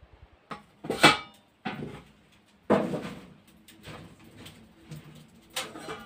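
A handful of irregular knocks and clatters, the loudest about a second in and again just under three seconds in.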